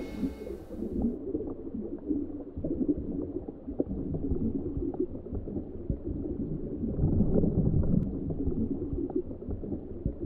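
Muffled underwater ambience: an uneven low rumble and gurgle with scattered faint clicks. The last brass chord of the music dies away in the first second.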